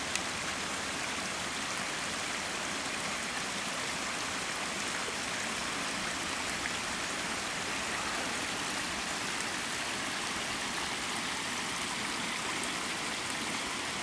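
Small spring-fed stream running down over rocks in a series of little cascades: a steady, even rush of water.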